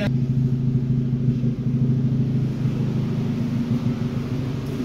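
Opel Corsa C's engine idling: a steady low rumble.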